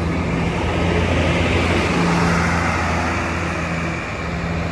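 Bus engine droning steadily under road and wind noise, the rush swelling over the first few seconds and easing near the end.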